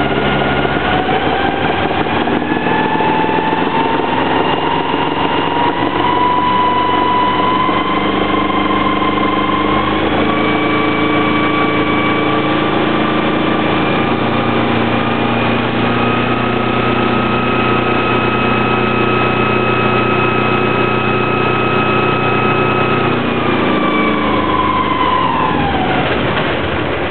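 Sailboat engine running with a high whine that climbs slowly in pitch over the first half, holds steady, then falls away near the end along with the engine's lower note.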